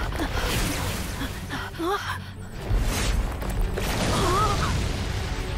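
Cartoon action sound effects: a steady low rumble and an explosion, with short cries or gasps from the characters about two seconds in and again near four seconds.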